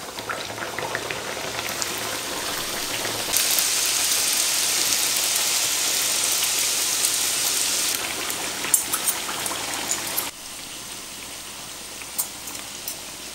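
Chebureki deep-frying in hot sunflower oil in a pan, the oil sizzling and bubbling steadily. The sizzle steps louder a few seconds in and drops back about ten seconds in, with a few light clicks near the end.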